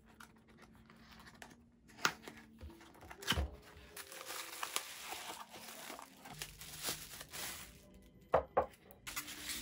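Cardboard packaging handled and opened by hand: paper rustling and rubbing, with sharp clicks and knocks about two seconds in, a little after three seconds and twice near eight seconds. Bubble wrap crinkles as a wrapped soap dish is lifted out.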